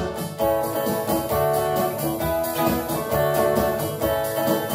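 Electric guitar playing an instrumental passage of a pop song between sung lines, over a steady rhythm.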